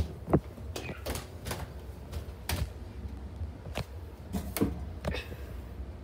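Footsteps going down wooden stairs: a series of irregular knocks and thuds, about one or two a second, over a low steady rumble.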